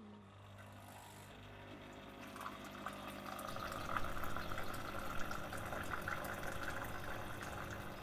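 Capsule espresso machine brewing into a glass cup while hot water is poured into a glass mug over a tea bag. A steady hum is joined by the splash of liquid filling the cups, which grows louder about three seconds in.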